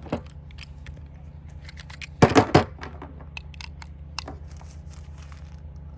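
Pistol cartridges being loaded into a Glock magazine: scattered small metallic clicks and handling noise, with a louder cluster of three clacks about two seconds in.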